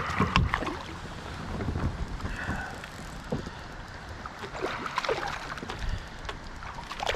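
Wind buffeting the microphone aboard a kayak, with scattered clicks and knocks, busiest near the start and again about five seconds in.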